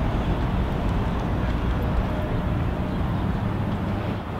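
Busy city street ambience: a steady rumble of passing traffic.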